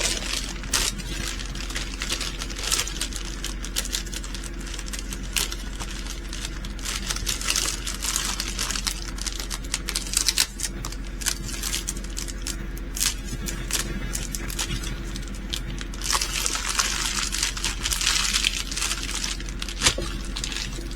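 Small plastic bags of diamond painting drills being rustled and handled, with many small clicks of the resin drills, and a denser stretch of crinkling near the end.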